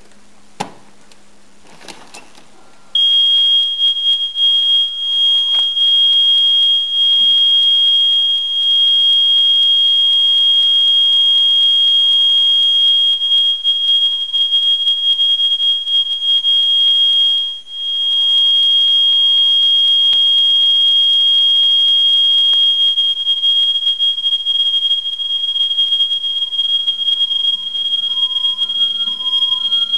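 Home burglar alarm siren sounding one loud, steady, high-pitched tone that switches on suddenly about three seconds in, after a couple of sharp clicks. Faint short beeps join underneath near the end.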